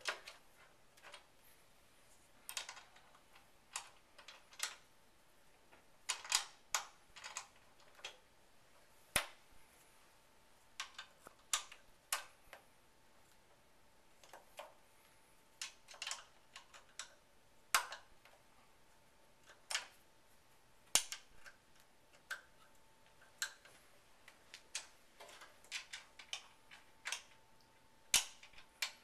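Allen wrench clicking and ticking against socket screws in a metal channel as they are tightened down, in irregular single clicks and short clusters.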